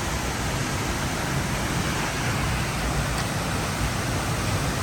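Steady rushing of a river and waterfall below the bridge, an even roar with no breaks.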